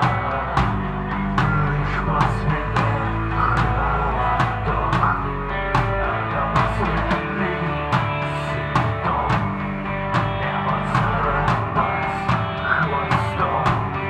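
Rock band playing live: drum kit, distorted electric guitar and electric bass, with a vocalist singing into a microphone over them.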